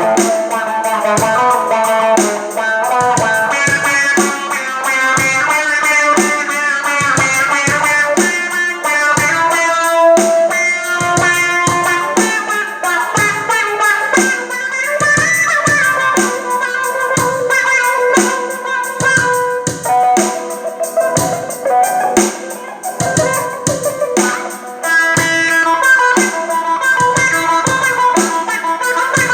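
Electric guitar played through a wah-wah pedal, a run of notes whose tone sweeps up and down, with a clear rising sweep about halfway through.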